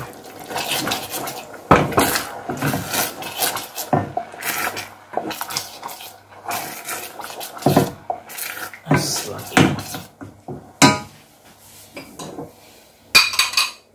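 Wooden spoon stirring thick sauce in a stainless steel saucepan, scraping and knocking against the pan's sides and bottom in irregular strokes.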